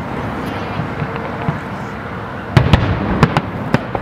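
Aerial firework shells bursting: a quick run of several sharp bangs starting about two and a half seconds in, over steady background noise.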